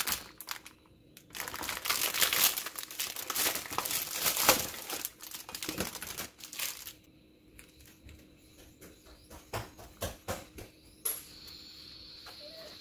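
Plastic packaging film crinkling and tearing as it is peeled off a plastic tray of mushrooms. The crinkling is dense and loudest in the first half, then thins into scattered light clicks and rustles as the contents are handled.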